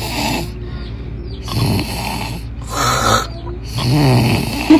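A person snoring loudly: a run of harsh snores about a second apart, some with a low buzzing rattle.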